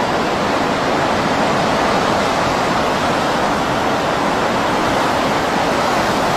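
Loud, steady rushing of a tsunami surge of seawater churning through a harbour and over breakwaters.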